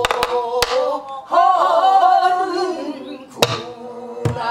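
Woman singing pansori, holding a long sung line whose pitch wavers and bends, accompanied by sharp stick strokes on a buk barrel drum: a few near the start, then one more past the middle and another near the end.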